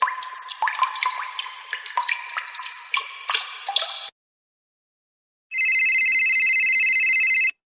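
Water-drop sound effect: a rapid patter of separate drips and plops, many rising in pitch, for about four seconds. It cuts off into silence. About halfway through, an electronic telephone ring sounds steadily for about two seconds.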